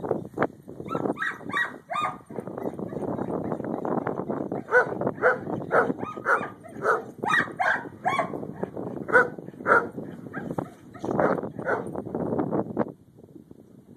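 A dog barking over and over in quick runs of short barks, about two a second, breaking off briefly a few times and stopping shortly before the end.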